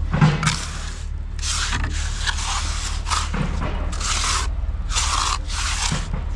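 Hand scraping or rubbing strokes on a rough surface, repeated in a steady rhythm of about one and a half strokes a second, over a low steady hum. There is a dull thud just after the start.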